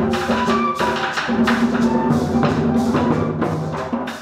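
Live Colombian folk band playing: wooden skin drums struck by hand and with a stick keep a steady beat under held flute notes, with gourd maracas shaking along. The music eases off slightly near the end.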